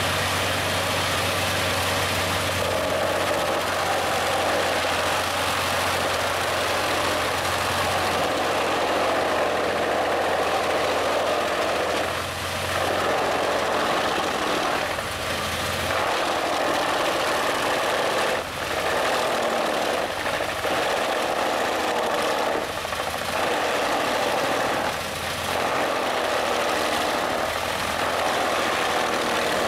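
Home-made wood chipper running under load as a log is fed into it, its engine and cutter making a steady, loud chipping noise that briefly dips about five times in the second half.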